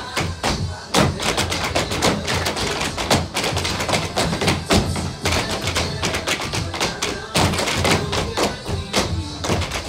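Tap shoes of several dancers striking the stage floor in rapid, rhythmic runs of taps, over upbeat backing music.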